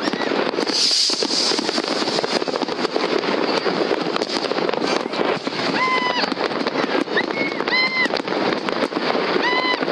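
Many fireworks going off across a city: a continuous crackle of distant bangs and pops, with a few short high-pitched tones in the second half.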